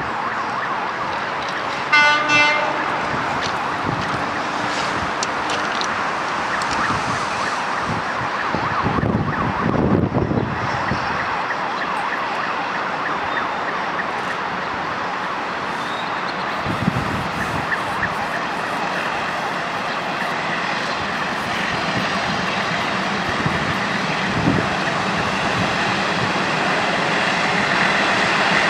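A freight train hauled by several MLW diesel locomotives approaching, its engines and rolling stock making a steady rumble that grows louder near the end. A short horn blast sounds once, about two seconds in.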